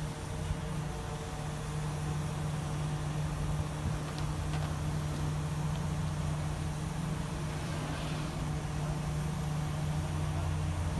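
A crane's engine runs at a steady low hum while the crane holds a boxed tree on its cable.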